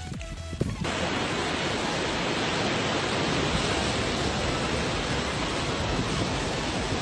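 A moment of music, then about a second in a sudden cut to the steady rushing noise of ocean surf breaking at the foot of a sea cliff.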